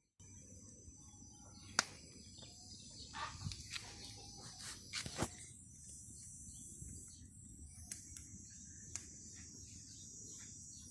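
Split-wood kindling crackling as it catches in a steel mangal, with sharp pops now and then, the loudest about two seconds in. Birds and insects chirp steadily in the background.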